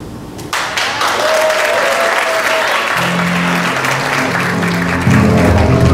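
Crowd applauding and cheering, with music fading in: pitched notes come in about three seconds in, and a heavier bass line joins near the end.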